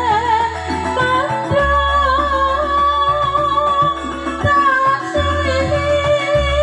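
Music with a singing voice over the stage sound system during a sound check. The melody wavers and bends in pitch, over long sustained bass notes that change every second or two.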